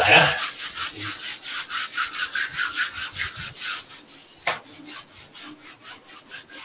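Whiteboard being wiped with an eraser in fast back-and-forth strokes, a scratchy rubbing at about five strokes a second that grows fainter after about four seconds, with a single knock partway through.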